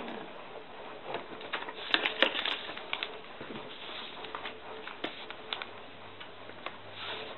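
Thin phonebook paper being handled and creased: irregular crackling and rustling with sharp clicks, densest and loudest about two seconds in, over a steady low hiss.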